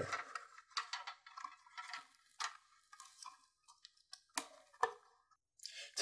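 Faint clicks and rustles of plastic wire nuts being twisted off the wires in a ceiling electrical box, disconnecting an old smoke detector's wiring, with two sharper clicks about four and a half seconds in.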